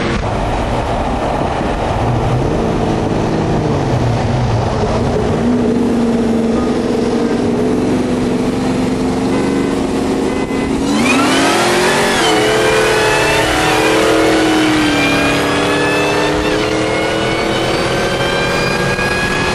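Car engine heard from inside a moving vehicle, first running and shifting pitch, then at about eleven seconds opening up to hard full-throttle acceleration. From there the engine note climbs and a high whine rises steadily with speed.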